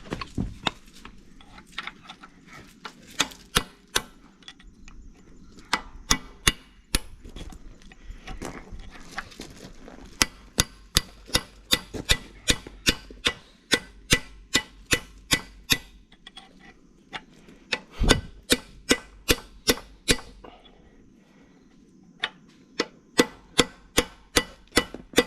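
Hammer blows driving a broken roll pin out of a steel pin on a Kubota U55 mini excavator's coupler: sharp metallic strikes in runs of steady blows, about two a second, with short pauses between runs.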